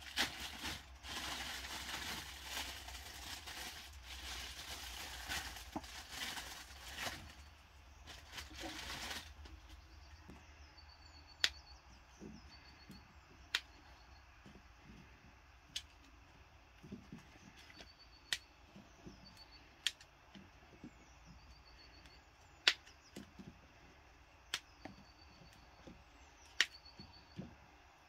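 Asparagus spears snapped by hand one at a time, each a single sharp crack, about every two seconds from around ten seconds in, after a stretch of even noise in the first nine seconds. Birds chirp faintly in the background.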